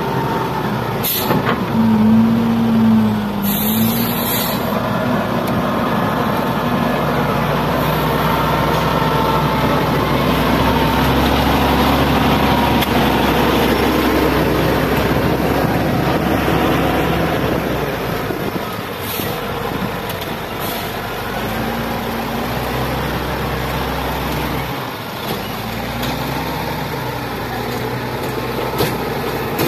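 XGMA wheel loader's diesel engine running under load, its speed rising and falling as it pushes and scoops soil. A short hiss comes about four seconds in, with fainter ones later.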